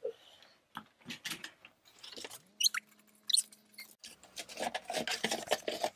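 Toy packaging being handled: scattered clicks, crinkles and rustles of cardboard and plastic as a toy set is worked out of its box. A short steady hum sounds in the middle, with a couple of high squeaks over it, and the rustling gets denser near the end.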